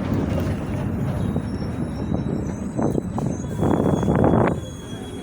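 Volvo B270F city bus running, its MWM 7.2-litre six-cylinder diesel and drivetrain giving a steady low rumble, with the differential growling. About three seconds in there is a short burst of noise, and a longer, louder one about a second later.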